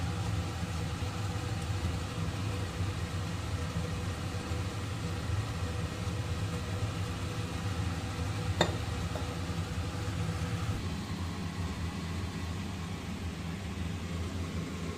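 A steady mechanical hum over a noisy rush, with one sharp click about eight and a half seconds in.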